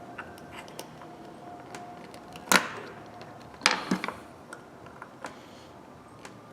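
Small metal clicks and ticks of a screwdriver prying at the E-clip on a ratchet head, with two sharper clicks a little over a second apart.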